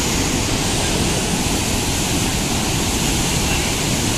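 Steady rushing of river water pouring through the gates of a barrage, an even noise with no breaks.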